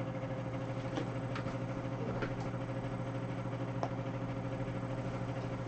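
Steady low electrical hum at one constant pitch, with a few faint, brief clicks or taps.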